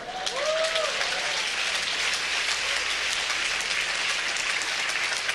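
Congregation applauding, steady clapping from many hands.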